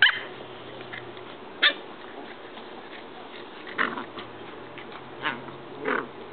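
Two corgi puppies play-fighting, giving about five short, sharp yelps, the loudest right at the start.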